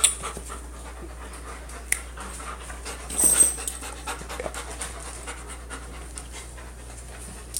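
An excited pet dog panting, with a few small clicks and one brief louder noise about three seconds in.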